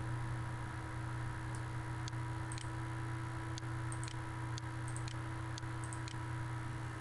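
Faint computer-mouse clicking, about ten light ticks at irregular intervals, over a steady low electrical hum.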